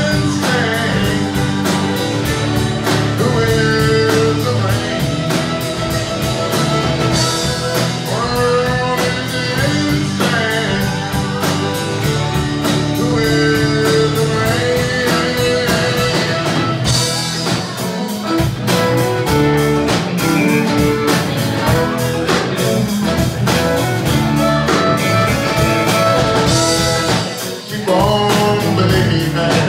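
A live band playing a song: a bowed fiddle over strummed acoustic guitar and a drum kit keeping a steady beat.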